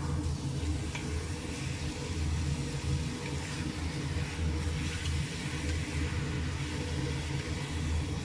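Chunks of meat sizzling as they fry in a stainless steel pot, stirred with a wooden spoon, over a steady low hum.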